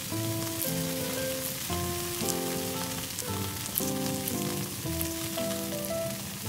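Sizzling like pork belly frying on a hot griddle, over background music of held instrumental notes that change about every half second.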